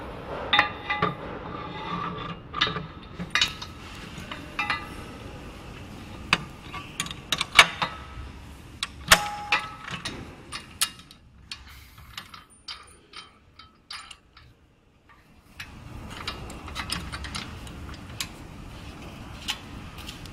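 Metal mounting hardware being handled: a run of sharp clicks and clanks, some ringing briefly, as a metal clamp bracket is fitted onto a pole. The knocks thin out into a quieter spell about two-thirds of the way through, then handling noise resumes.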